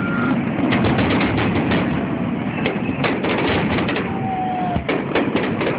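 Aerial fireworks bursting and crackling: many sharp bangs and pops in quick succession over a steady din.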